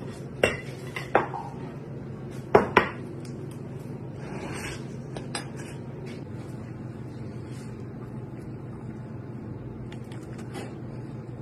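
Metal utensils clinking against a ceramic plate and dish: four sharp clinks in about the first three seconds, then fainter clicks and scrapes of a knife and fork. A steady low hum runs underneath.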